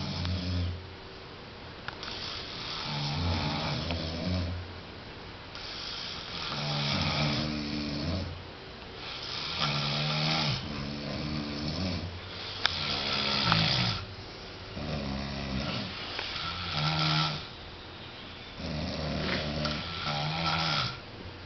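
Two people snoring in their sleep: rasping snores of a second or two each, about one every three seconds, the two sleepers' snores at times overlapping.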